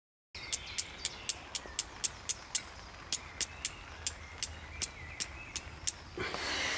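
After a moment of dead silence, a rapid, regular run of sharp, high clicks, about four a second, over a faint steady hiss. Near the end the clicks stop and a louder rustle takes over.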